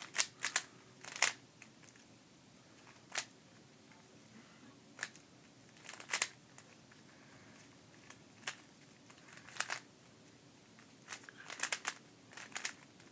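Plastic layers of a GAN Air Master 3x3 speedcube being turned by hand: sharp clicks, some single and some in quick clusters of two or three, with irregular pauses between them.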